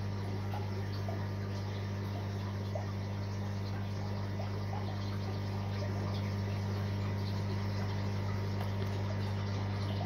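Steady low hum of a sump aquarium's circulation pump with water flowing, heard underwater, with a few faint ticks.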